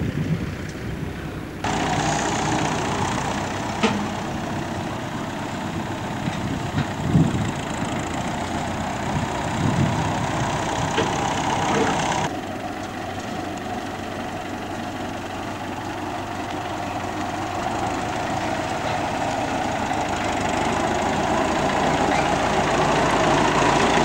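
Farm tractor engine running steadily, growing gradually louder toward the end. The sound changes abruptly about one and a half seconds in and again about halfway through, where the tape is cut.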